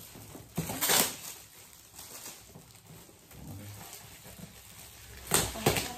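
Metallic foil gift wrap being torn and crumpled off a boxed present: a loud crinkling rustle about a second in and again near the end, with quieter rustling between.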